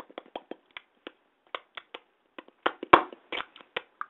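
A rapid, irregular string of sharp tongue clicks made in the mouth, click consonants being practised, the loudest about three seconds in.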